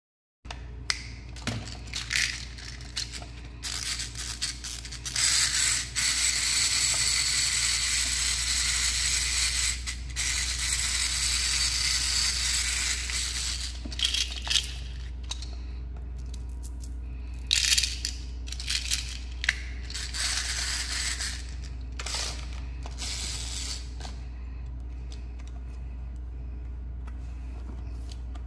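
Plastic toys and candy packs being handled and rummaged: repeated clicking, rattling and scraping, with a longer stretch of hissing noise in the middle, over a steady low hum.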